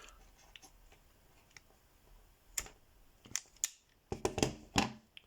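Yato YT-2313 self-adjusting wire stripper squeezed on a wire: a few sharp clicks and snaps as its jaws grip and cut and the insulation is pulled off, ending in a quick cluster of clicks.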